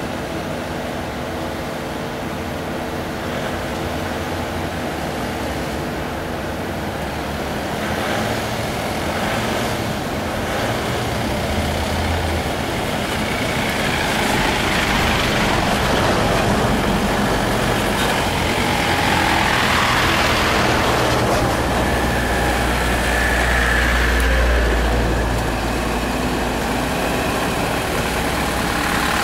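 Several diesel school buses running and pulling away one after another. The engines grow louder through the second half, with a deep rumble about three quarters of the way in as one passes close.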